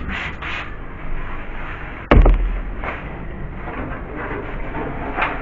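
A few quick wiping strokes, then one loud, sudden thud about two seconds in as a fridge part is knocked or set down, followed by light handling noise.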